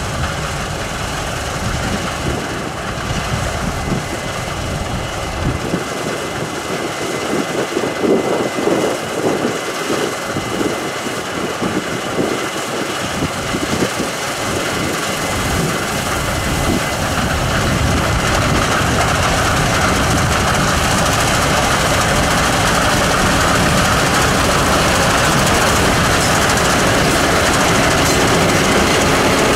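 Case IH 9230 Axial-Flow combine harvester running under load while cutting wheat: a steady heavy engine-and-threshing drone with a faint high whine, growing louder over the second half as the machine comes close.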